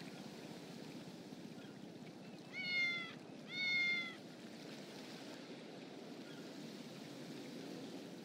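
A cat meowing twice, two short calls of about half a second each in quick succession, over a steady low background noise.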